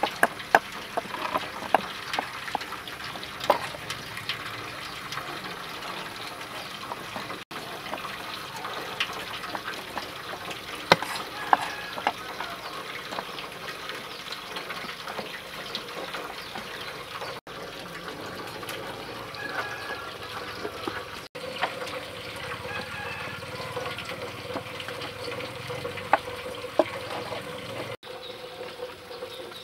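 A cleaver scraping scales off small fish on a wooden chopping board, a wet rasping broken by sharp knocks and clicks of the blade on the wood.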